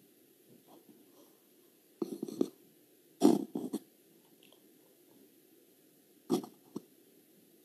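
Three brief clusters of bumps and rustles from a phone being handled close to its microphone, the loudest about three seconds in, over faint room tone.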